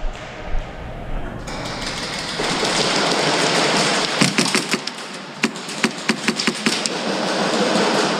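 Airsoft gunfire: sharp cracks in short bursts and single shots, with BB hits, over a steady hiss.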